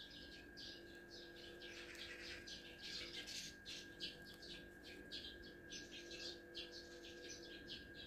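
Small birds chirping rapidly and faintly, several chirps a second, with a faint steady high tone underneath.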